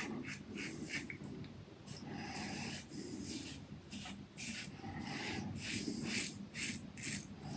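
A Yaqi Slope 316 stainless steel slant safety razor with a Wizamet Super Iridium blade cutting three-day stubble under the chin. It makes a quick series of short rasping scrapes, one for each stroke.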